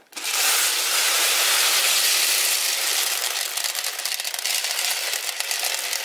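Hundreds of small plastic beads pouring out of a toy microwave and spilling across a hard tabletop: a dense rattling cascade that begins suddenly and thins into many separate small clicks over the second half.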